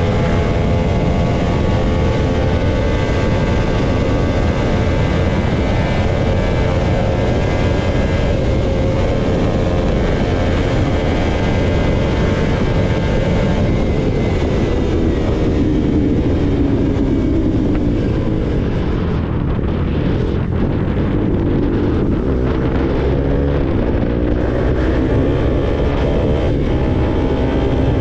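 KTM RC sportbike's single-cylinder engine running at highway speed, with wind rushing over the microphone. The engine note falls a little past halfway through and climbs again near the end as the throttle is opened.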